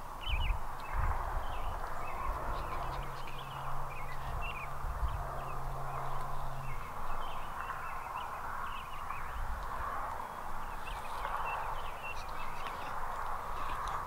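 Many small birds chirping and singing all through, over a low rumble on the microphone.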